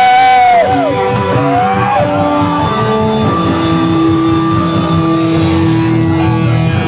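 A live rock band playing loud electric guitar, with pitches sliding up and down over the first two seconds and then long held notes over a dense low rumble.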